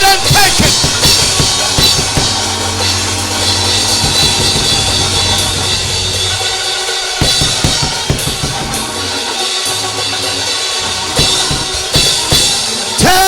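Live church band playing upbeat music driven by a drum kit, with bass drum, snare and cymbal hits over low bass notes.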